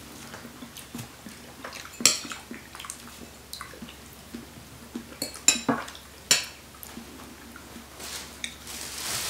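Forks and spoons clinking and scraping against plates, with a few sharp clinks. A soft rustling hiss builds near the end.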